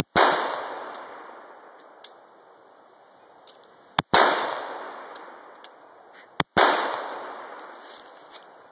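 Three .45 ACP shots from a Glock 41 Gen4 pistol, the first at the start, the second about four seconds later and the third two and a half seconds after that, each trailing off in a long echo.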